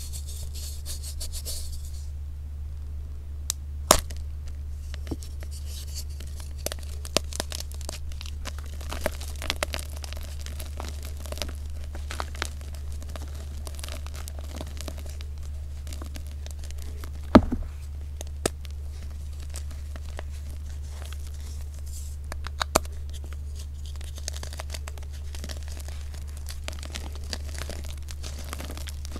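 Blocks of reformed, dyed gym chalk crushed and crumbled by hand: soft gritty crunching and rubbing with many small crackles, and sharp cracks as pieces break, the loudest about 17 seconds in. A steady low hum lies underneath.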